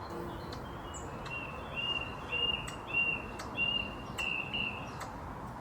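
Squirrel giving a run of about eight short, high chirps, nearly three a second, starting just over a second in: the hiccup-like calls of an agitated, alarmed squirrel.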